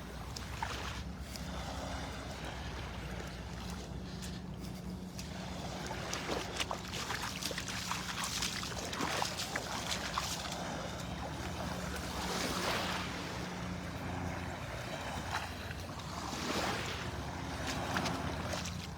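Small Gulf waves washing in the shallows, swelling every few seconds, over a steady low drone from a distant motor.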